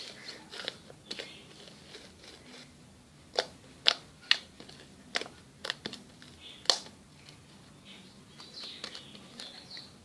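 Slime being squished and poked by hand, giving irregular sharp pops and clicks, about a dozen, the loudest about four seconds in and near seven seconds in.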